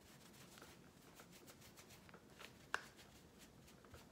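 Makeup brush worked in a pressed powder bronzer pan: faint, quick scratchy strokes, with one sharp click a little under three seconds in.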